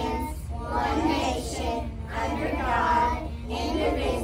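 A class of young children and their teachers reciting the Pledge of Allegiance together in unison, in short phrases with brief pauses between them.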